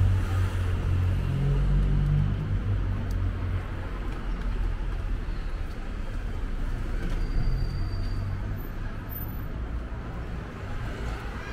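Low rumble of motor vehicles on a city street, loudest in the first couple of seconds and then easing into a steadier background traffic hum.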